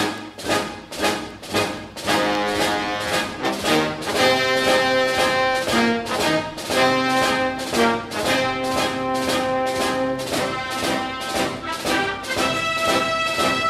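Orchestral background music with a steady beat, a new piece starting right at the beginning.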